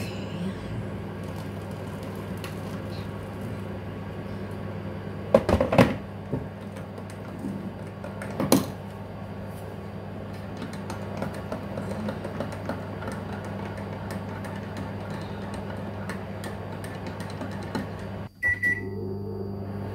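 Microwave oven running with a steady hum while a metal spoon clinks against a ceramic mug a few times in the middle. Near the end the microwave gives a short high beep as it finishes heating.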